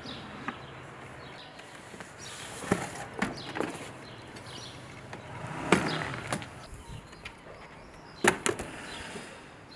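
Knocks and thumps of luggage and a wooden stick being handled and set down in an estate car's open boot: a handful of sharp knocks spread through, the loudest about halfway and again near the end.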